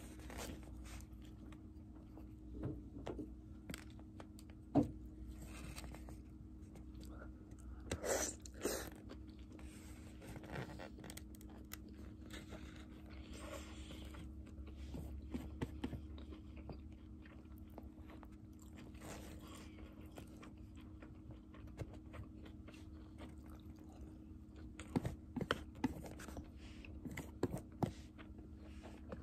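Close-up eating of a takeout beef-and-kimchi rice bowl: chewing and crunching, with scattered sharp clicks and scrapes of chopsticks against the plastic container. The loudest bursts come about eight seconds in and again near the end.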